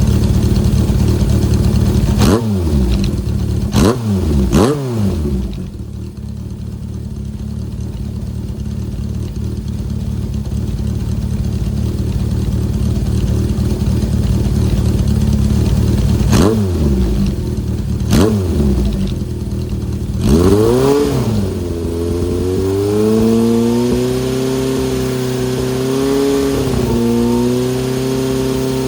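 Honda CB750 Four's inline-four engine running through a Yoshimura straight cyclone short silencer: idling with quick throttle blips, three in the first five seconds and three more later on, then settling into a steady, slightly wavering idle near the end.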